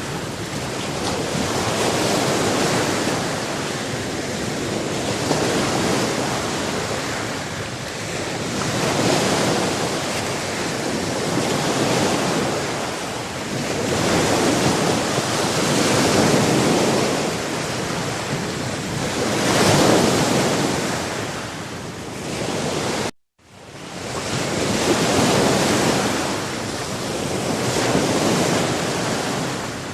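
Ocean surf: waves breaking and washing in a continuous rush that swells and ebbs every few seconds. About three quarters of the way through the sound cuts out for a moment and fades back in.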